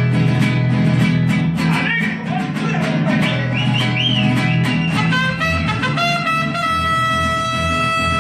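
Mariachi band playing: rhythmic strumming of guitars over a bass line, with a melody that slides up and down, then a long held chord from about halfway through.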